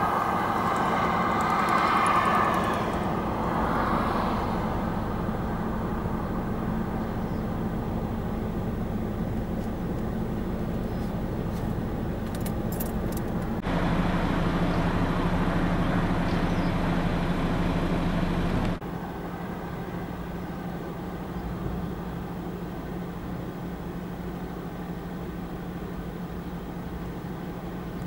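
Level-crossing audible warning alarm sounding and stopping about two and a half seconds in, over the steady low hum of an idling lorry engine. A louder stretch of engine noise comes in and cuts off suddenly in the middle.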